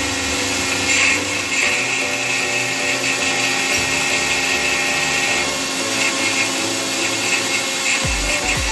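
Resemin Raptor 55 long-hole drilling rig's hydraulic rock drill drilling rock with a 64 mm bit: a loud, steady mechanical noise with several steady tones. A few low thumps come near the end.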